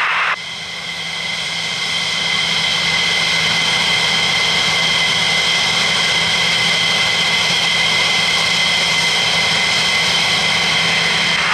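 F-15E Strike Eagle's twin Pratt & Whitney F100 turbofans running as the jet taxis: a steady jet whine with two high tones over a rushing hiss. It grows louder over the first couple of seconds, then holds steady.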